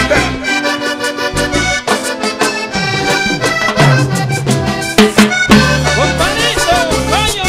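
Live vallenato band playing an instrumental passage, led by a button accordion over caja drum and bass.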